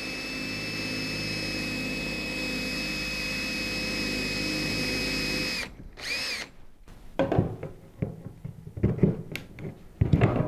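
Cordless drill with a small 1/8-inch bit running steadily as it bores holes through PVC pipe. The whine stops about five and a half seconds in and is followed by a short second burst. Irregular scraping and tapping follow as the drilled plastic is worked loose.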